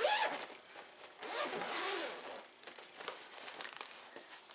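Zipper on the cloth outer bag of an Oreck upright vacuum cleaner being pulled open, a short rasp and then a longer one, followed by a few small clicks. This is how the bag is opened to get at the dust bag inside.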